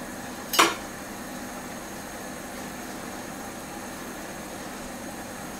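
A single sharp clatter of metal on a metal roasting tin about half a second in, as roast chicken is being cut apart with a knife, followed by a steady mechanical hum.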